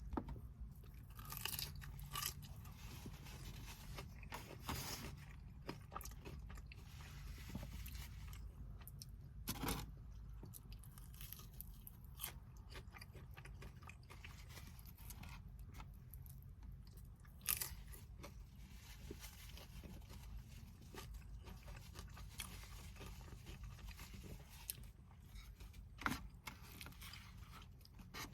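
Close-up eating sounds: a person chewing and biting food, with scattered sharp crunches and crackles over a steady low hum.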